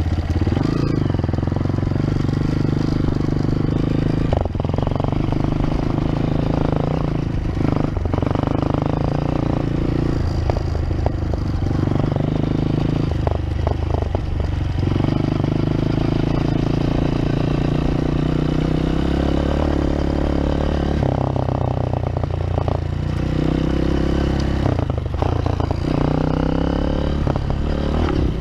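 Honda CRF230F dirt bike's single-cylinder four-stroke engine running while being ridden, its note rising and dropping again and again as the throttle opens and closes.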